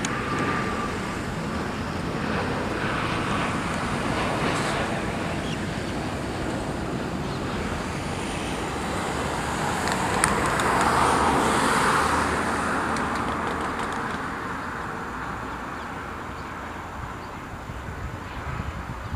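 Steady engine and traffic noise that swells to its loudest about ten to twelve seconds in as something passes, then slowly fades.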